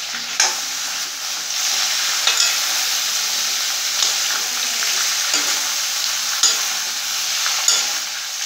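Potato and aubergine pieces sizzling in hot mustard oil in a kadhai while a metal spatula stirs them, scraping against the pan every second or two.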